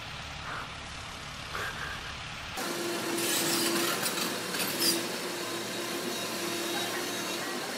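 Low outdoor rumble at first, then, from about two and a half seconds in, a Doosan DX225 hydraulic excavator working on a brick-and-concrete building. Its engine runs with a steady, repeating hum, and concrete and brick rubble crunches and clatters, loudest over the next couple of seconds.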